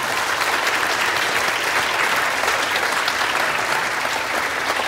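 Congregation applauding, a steady round of clapping as members stand to be recognised.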